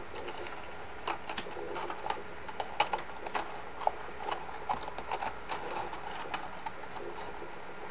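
Light, irregular clicks and rustles of thin cardstock being handled and pressed together.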